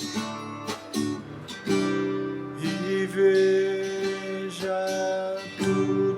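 Acoustic guitar music: chords strummed every second or so and left to ring.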